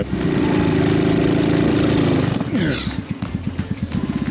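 Coolster GK-6125A mini jeep's small single-cylinder engine revving high and steady as it tries and fails to pull away uphill in snow. About two and a half seconds in the revs fall away, and it settles to a slow, evenly pulsing idle. The engine is short of power, starved of air at high altitude.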